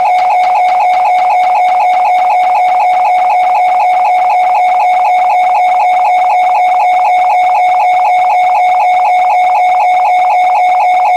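Loud sustained droning tone at one steady pitch, pulsing rapidly and evenly at about five pulses a second without change.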